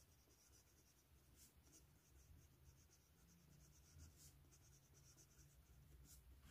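Faint scratching of a Syahi broad steel fountain-pen nib moving over cheap photocopier paper, in short strokes as words are written.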